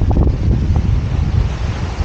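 Wind buffeting the microphone in a heavy low rumble, over the steady hiss of surf washing onto the beach.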